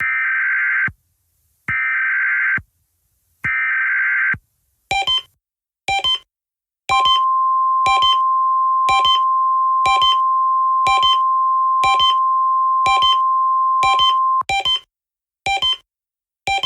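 Synthesized emergency-alert tones. First come three one-second bursts of buzzing EAS/SAME header data. Then short electronic beeps repeat about once a second, with a steady single-pitch alert tone held for about seven seconds in the middle, like the NOAA Weather Radio alarm.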